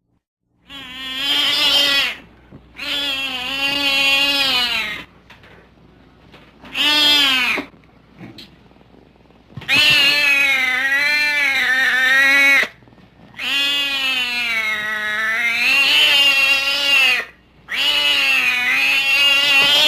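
A domestic cat giving six long, drawn-out meows, the longer ones wavering in pitch like a yowl, with short pauses between them.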